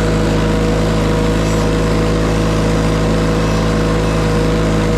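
An engine running at a steady, unchanging speed, a constant drone with a steady higher hum above it.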